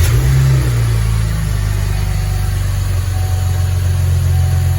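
2015 Chevrolet Camaro RS's 3.6-litre V6, fitted with a K&N cold air intake, idling steadily. The note is a little higher in the first second, then settles.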